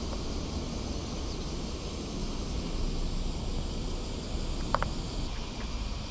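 Wind buffeting the microphone outdoors: a steady low rumble with a broad hiss over it. A short sharp click comes a little under five seconds in.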